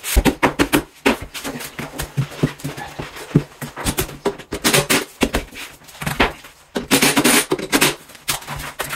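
Knocks, clacks and scraping from white particleboard wardrobe panels being handled and fitted together, with a few louder, longer scraping rustles about halfway through and again near the end.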